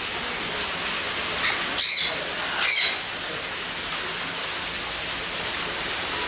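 Parrots squawking, two loud harsh calls a little under a second apart about two seconds in, with a fainter one just before, over a steady hiss of background noise.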